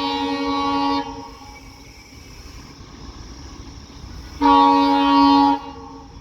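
Diesel locomotive horn blowing two blasts: the first cuts off about a second in, and a second, louder blast of about a second sounds near the end. A low train rumble runs between them.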